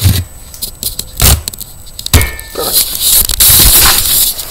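Rustling and scraping handling noise with several sudden knocks and a rattle, as the recording phone is moved and rubbed.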